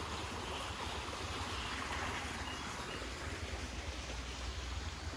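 Steady rush of water flowing along a stone-lined stream channel.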